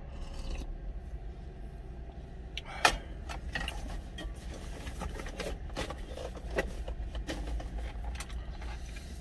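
A sip of soup slurped from a plastic cup, then small lip smacks and clicks while tasting, over a steady low rumble. One sharp click stands out just before three seconds in.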